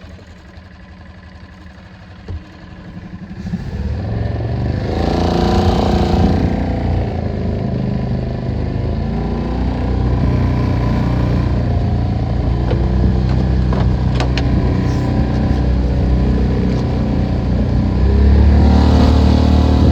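Small boat outboard motor running low and quiet, then throttled up about three seconds in, its pitch climbing as the boat gets under way and then running steadily at speed, opening up a little more near the end.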